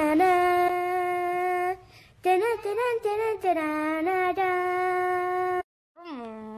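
A young girl's voice singing long held notes in short phrases, sliding into each note. There is a short break about 2 s in, a silence near the end, and then a lower note.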